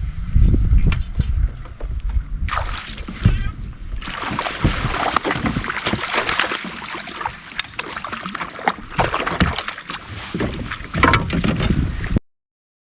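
Wind and water noise aboard a fishing boat, with a low rumble at first and then a rough hiss with many small knocks and splashes; it cuts off suddenly near the end.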